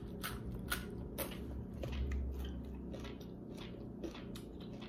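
Close-up eating sounds: chewing a crunchy raw green vegetable, a run of crisp crunches a few times a second.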